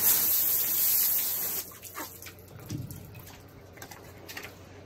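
Water spraying hard from a hose, a loud hiss for about a second and a half that cuts off suddenly, followed by quiet background with a few faint knocks.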